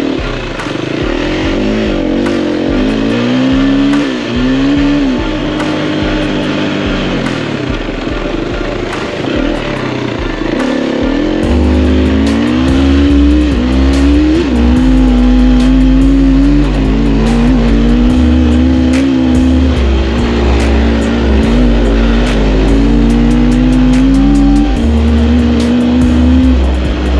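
Enduro dirt bike engine being ridden, its pitch climbing under throttle and dropping back again and again as the rider shifts and rolls off. From a little under halfway in, music with a heavy bass line plays over it.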